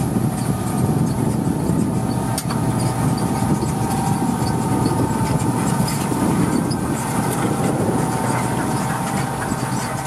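Deutz-Fahr Agrotron 7250 TTV tractor's six-cylinder diesel engine running steadily under load as it pulls a five-furrow mounted plough through the soil, with a steady high whine over the engine noise.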